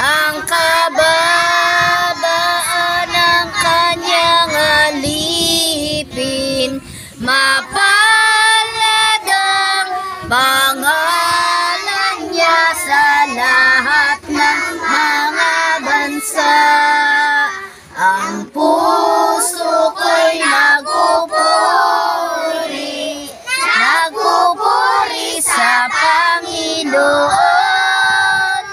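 A group of children singing a song together, with short pauses between lines.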